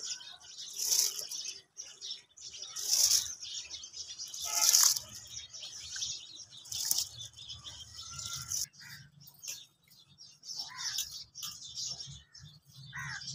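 Raw rice tipped in handfuls from a steel bowl into a pot of boiling water for pulao: four hissing, pattering pours about two seconds apart. After them it goes quieter, with a few short chirps.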